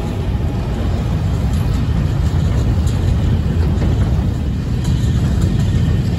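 Freight train's container wagons rolling past close by: a steady low rumble of wheels on rail with faint scattered clicks.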